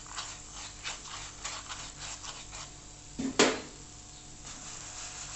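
Light rubbing and scraping of a silicone pastry brush spreading oil on a flatbread in a non-stick pan, then a loud knock of a wooden spatula against the pan a little over three seconds in.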